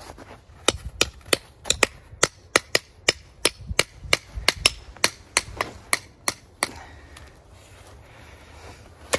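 Metal garden trowel striking and chipping a thick block of ice in quick sharp taps, about four a second, stopping about two-thirds of the way through.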